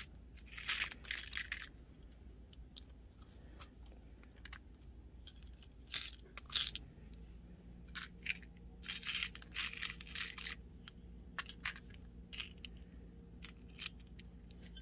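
Small glass honeycomb beads pouring off a plastic triangle bead scoop into a small plastic bead box, in several short rattling pours, with light clicks of the plastic boxes being handled.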